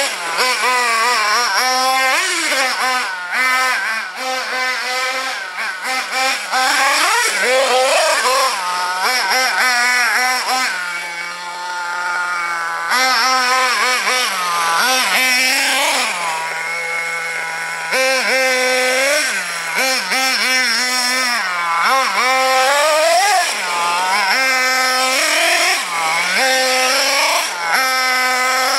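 Macstar .28 six-port nitro engine of a Hobao Hyper ST 1/8-scale truggy, revving hard and dropping back over and over as the truggy is driven, twice settling to a low idle for a second or two near the middle. The engine is tuned slightly rich.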